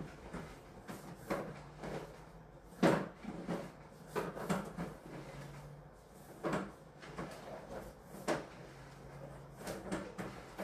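Irregular knocks and clunks, roughly one every second, as a sewer inspection camera's push cable is fed down a drain line, with a faint low hum now and then.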